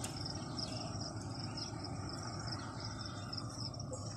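Insects chirping in repeated short, high-pitched pulses, several a second, over a low steady background rumble.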